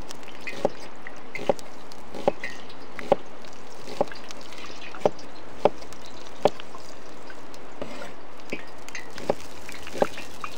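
Water dripping: single drops plopping about once a second at uneven intervals over a steady rushing background.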